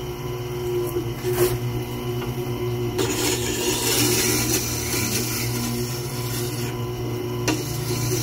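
Tormek wet-stone grinder's motor humming steadily, with a click about a second in. From about three seconds in, a steel bowl gouge in its jig rubs on the turning coarse-dressed wet stone with a steady grinding hiss; the hiss stops briefly and resumes near the end. The grinding is the first shaping of the new gouge's bevel.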